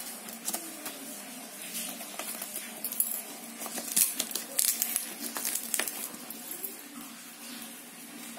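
Brown packing tape and cardboard of a parcel being torn and cut open with scissors: irregular crackling and crinkling with sharp clicks, busiest in the middle stretch.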